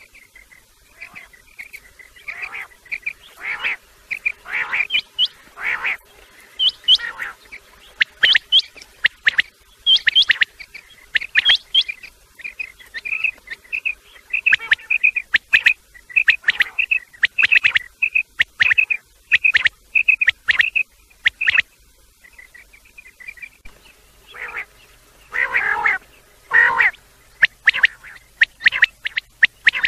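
Quails calling: a long series of short, high notes, about two a second, broken by a few louder, harsher calls about 25 seconds in.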